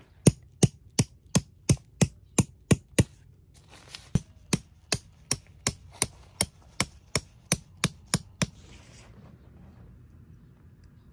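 Hammer blows struck in a quick, even rhythm of about three a second: a run of about eight, a short pause, then about thirteen more.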